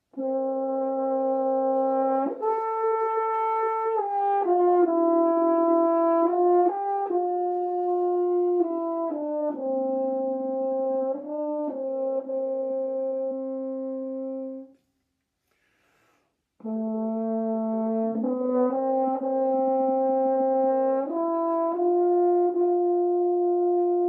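Solo French horn playing a slow melody of held notes, in two phrases with a short breath between them about halfway through; the second phrase ends on a long held note.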